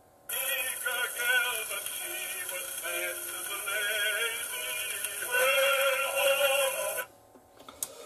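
A homemade gramophone with a Songster soundbox and a plastic-pipe air-horn tone arm playing a shellac record acoustically. A singer with wavering vibrato and accompaniment comes through with little bass over steady surface hiss. It starts just after the beginning and cuts off suddenly about seven seconds in as the soundbox is lifted, followed by a small click.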